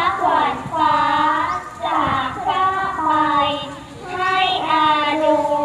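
Children singing a song together, holding long notes in phrases of about two seconds with short breaths between them.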